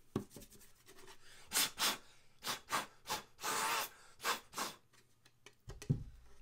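Short puffs of breath blown into the screw holes of a wooden skateboard deck to clear out wood dust left by the screws, about seven puffs coming mostly in quick pairs. A soft low thump with a few clicks near the end.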